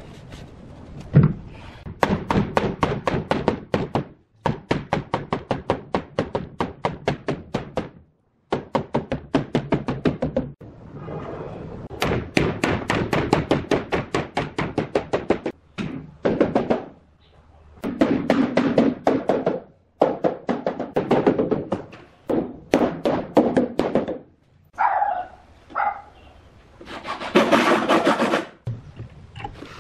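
Rubber mallet knocking on pine bed-frame joints in fast, even runs of taps, about nine a second, broken by short pauses.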